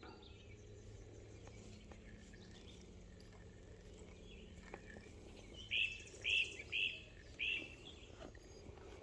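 A bird calling four short, sharp notes in quick succession, starting about six seconds in, over faint steady background noise.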